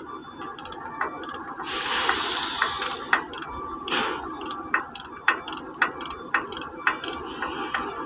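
Ratchet wrench clicking as the bolts holding a crane's boom base pin lock cylinder are undone, with sharp clicks about two a second in the second half. A short hiss sounds about two seconds in.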